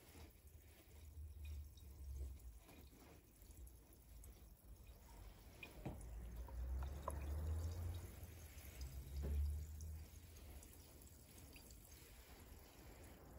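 Faint fizzing of a carbonated drink in a glass around pieces of agar crystal candy, with scattered small pops and drip-like ticks as the bubbles rise and burst. Under it a low rumble swells a few times and is loudest a little past the middle.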